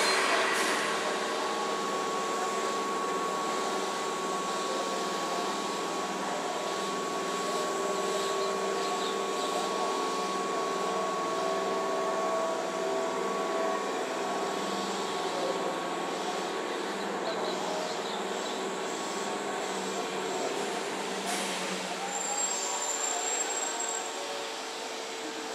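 Keihan 2600 series electric train standing at a station platform, its onboard equipment humming steadily with a rhythmic low throb that stops about 21 seconds in. A short high tone sounds near the end.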